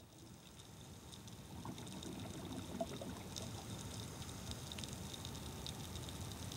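Underwater water noise, a steady wash with scattered faint clicks and crackles, swelling in over the first couple of seconds.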